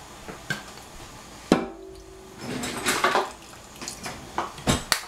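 Kitchen clatter of a metal saucepan and spoon in a stainless steel sink: one sharp clank with a short ring about a second and a half in, then a run of irregular knocks and taps as the pot is handled and seasoning is shaken over it.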